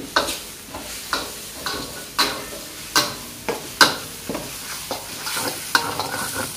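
Spatula stirring and scraping through frying garlic, spice paste and chicken skin in a wok over a steady sizzle, knocking against the pan roughly every half second.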